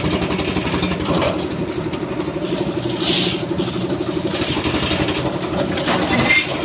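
A motor engine running steadily with a fast, even pulse, with a brief hiss about three seconds in and some scattered higher noises over it.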